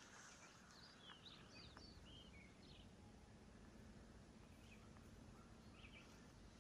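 Near silence in the woods, with faint bird chirps: a quick run of short notes about a second in and a few more near the end.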